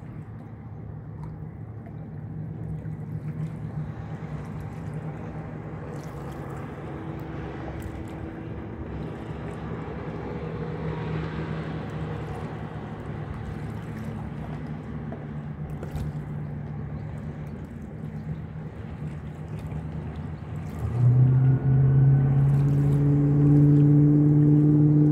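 A motorboat engine runs at low throttle with a steady hum. About twenty seconds in, the throttle opens: the engine note jumps much louder and climbs slightly as the boat speeds away planing.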